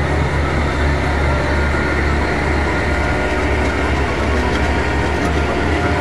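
A heavy vehicle engine running steadily: a continuous low drone with a steady hum that does not change.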